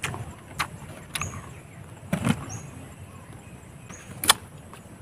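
Close-miked chewing of raw green fruit and leaves: a few scattered crisp crunches and mouth smacks, the sharpest about four seconds in.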